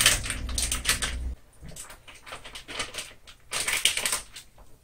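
Plastic wrap on a package of ground beef crinkling and crackling in quick runs of small crackles as it is torn open and handled, thickest in the first second and again near the end. A low background hum cuts off about a second and a half in.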